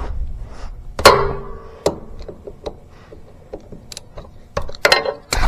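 A sharp metallic clank with a brief ring about a second in, then a second knock and scattered light clicks and taps: a 3/8-drive breaker bar being fitted to and working loose the drain plug on a hydrostatic pump.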